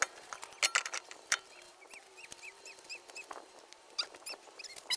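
Steel lug nuts clinking and clicking sharply and irregularly as they are handled and threaded onto the wheel studs of an alloy wheel, with a quick run of short high chirps about two seconds in.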